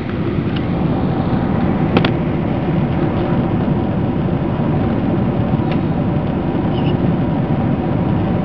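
Steady roar inside the cabin of a Boeing 767-300ER on approach, engine and airflow noise with a faint hum of steady tones over it. A short sharp click about two seconds in.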